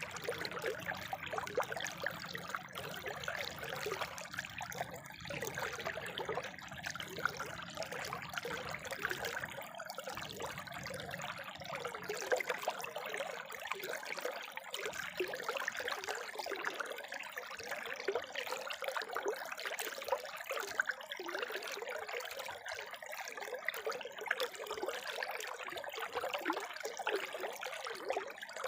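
Spring water trickling and splashing steadily, an even rushing with fine irregular spatters. A low rumble beneath it fades out about ten seconds in.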